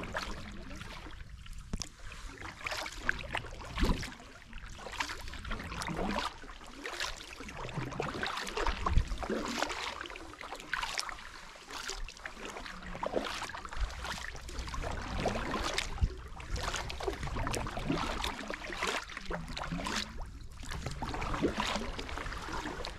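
Double-bladed kayak paddle dipping and pulling through calm river water, stroke after stroke, with water splashing and dripping off the blades.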